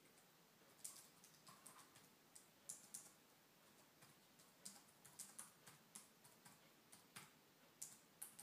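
Faint, irregular clicks of a pet rabbit licking and grooming its fur.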